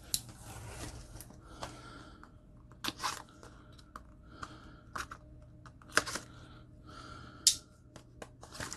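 Small cardboard knife boxes being handled and opened by hand: scattered taps, rubs and scrapes of thin card, with the sharpest click about seven and a half seconds in.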